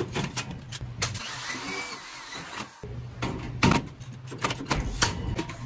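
Electric drill motor running in runs as it drives screws into galvanized steel furring channels, with sharp clicks and knocks of metal throughout; the motor stops briefly about halfway through and starts again.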